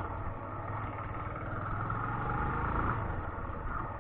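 Suzuki Intruder 125's single-cylinder engine running steadily as the motorcycle is ridden along, a continuous low drone with road noise.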